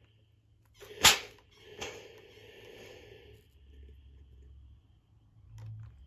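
Steam iron giving two sharp shots of steam, about a second in and again shortly after, the second trailing off in a hiss.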